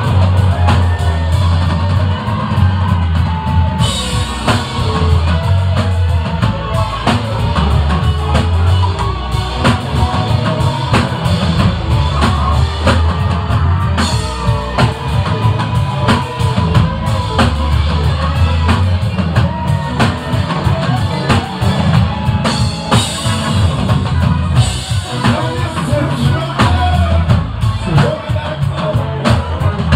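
Live rock band playing loudly, with guitars over a drum kit keeping a steady beat and a heavy bass line.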